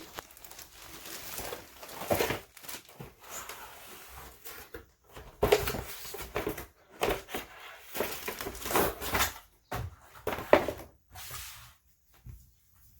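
Cardboard box and its packaging being opened and handled, with irregular rustling and scraping that grows busier in the second half, the loudest burst about ten and a half seconds in.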